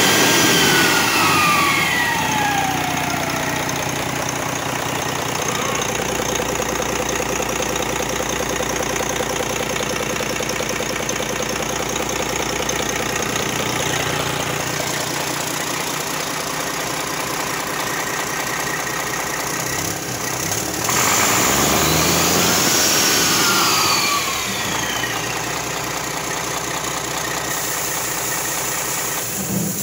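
1998 Cummins ISM inline-six diesel engine on a test run, running steadily near idle. Its speed is coming down in the first few seconds. Past the middle it is revved up once and let back down.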